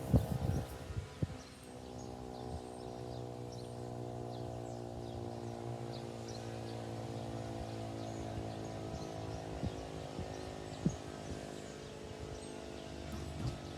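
Federal Signal 2001-130 mechanical outdoor warning siren holding a steady alert tone, its pitch level throughout.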